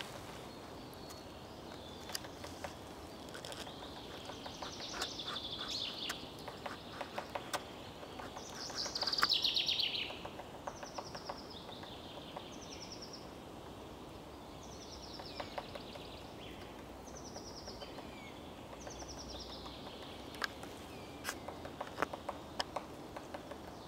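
Woodpecker tapping on a tree in irregular clusters of sharp knocks, while small songbirds sing short, repeated high trilled phrases.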